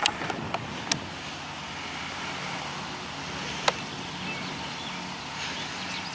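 Steady outdoor rumble of road traffic, with two sharp clicks, about a second in and near the four-second mark.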